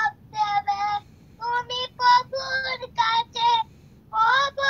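A young boy singing a gazal without accompaniment, in a high voice, in short sung phrases broken by brief pauses.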